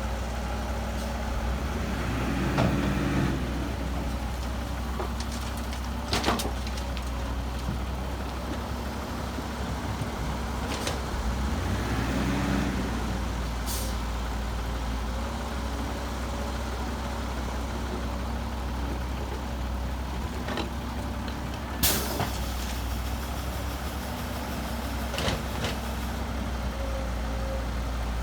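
Heavy diesel earthmoving machinery running steadily, dump trucks and a bulldozer at work. The engines rise and fall twice, with scattered metal clanks, and about two-thirds through there is a sharp clank and then a hiss of air lasting a few seconds, like an air brake releasing.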